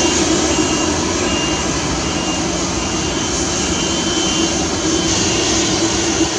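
Twin Pratt & Whitney Canada PW308C turbofans of a Dassault Falcon 2000LX business jet running at low taxi power: a steady jet rush with a low hum and a faint high whine that comes and goes.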